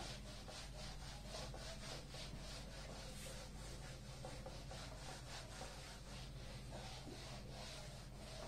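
Whiteboard eraser wiping a whiteboard clean in quick, repeated back-and-forth strokes: a faint, rhythmic rubbing swish, about two or three strokes a second.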